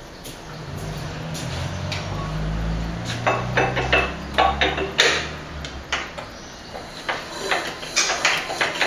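Irregular metallic knocks and clicks from hand work on a vintage Russell Newbery RD1 stationary diesel engine before it runs. A low rumble swells and fades under the first half.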